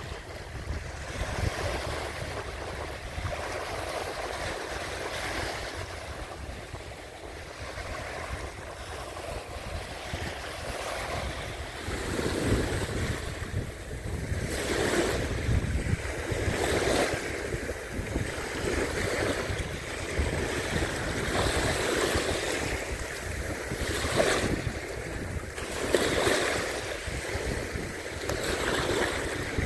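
Small, gentle waves lapping and washing up over wet sand at the water's edge, surging every couple of seconds in the second half, with wind rumbling on the microphone.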